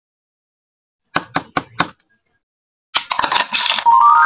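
About a second in, four quick knocks of fingers tapping the bottom of an upturned plastic sand mould packed with kinetic sand, then a rattly scrape as the mould is lifted off the sand, ending in a twinkling chime sound effect that steps upward in pitch.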